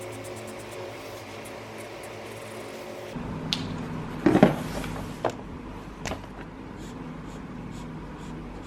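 Felt-tip pens being handled: a few short clicks and taps, the loudest about four and a half seconds in, over a faint steady hum.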